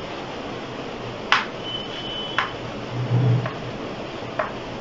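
Chalk tapping and scratching on a chalkboard as a heading is written: a few short, sharp taps about a second apart over a steady hiss, with a brief high tone near two seconds in.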